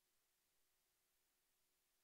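Near silence: only a faint hiss.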